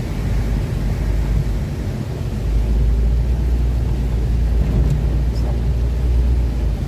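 Car on the move: a steady low rumble of engine and road, heavier for a few seconds in the middle, with tyres hissing on a rain-wet road.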